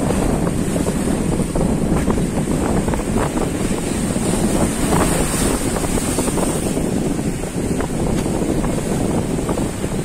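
Strong wind buffeting the microphone over the steady rush of rough sea and surf washing against shoreline rocks.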